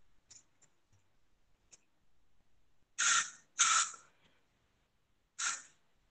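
Perfume spray bottle spritzed three times in short hisses, two close together about three seconds in and one more near the end, with a few faint clicks before them.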